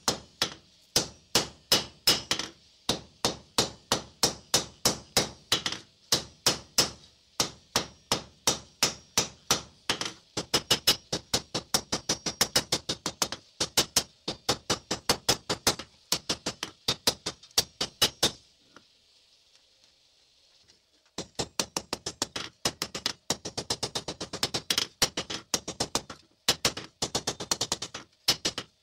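Hand hammer striking red-hot steel knife stock on an anvil, sharp metallic blows at about three a second, quickening to about five a second around ten seconds in. The blows stop for a couple of seconds past the middle, leaving only a faint hiss, then resume in quick runs.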